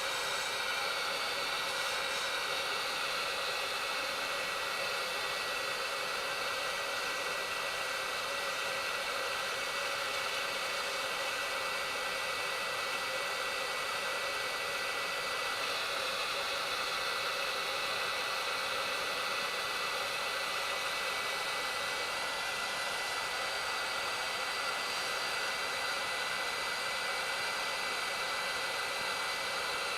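Hot air gun of a Gordak 863 soldering station blowing steadily: an even rush of air with a thin, steady whine.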